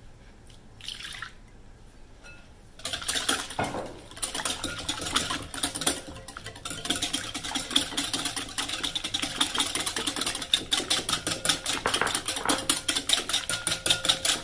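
Milk poured briefly into a glass mixing bowl about a second in, then, from about three seconds in, a wire whisk beating the milk and egg batter in the glass bowl: fast, steady clicking of the wires against the glass with a wet swishing.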